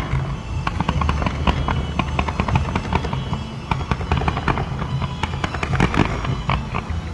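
Fireworks going off in quick succession: many sharp bangs and crackles, one after another.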